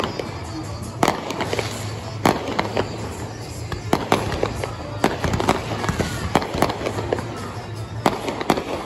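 Fireworks display: sharp bangs of aerial shells bursting every second or two, with smaller crackling pops in between.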